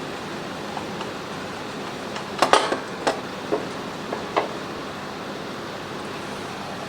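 A quick run of hard knocks and clatters, the oil filter and tools being handled against the drain pan as the filter comes off. The loudest knock comes about two and a half seconds in and the last about four and a half seconds in, over a steady hiss.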